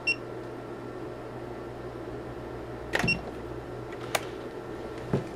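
Clicks and light knocks from handling multimeter test leads and parts in the test fixture, over a steady low hum, with two short high-pitched beeps, one at the start and one about three seconds in.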